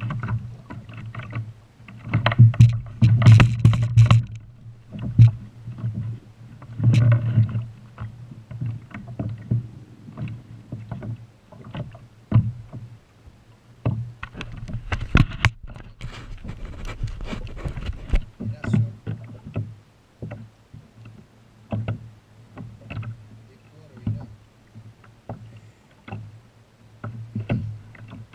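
Irregular knocks, bumps and splashes on a kayak as a large whitemouth croaker is landed and handled on board, over water lapping at the hull. The loudest clusters of knocks come a few seconds in, around seven seconds in, and about halfway through.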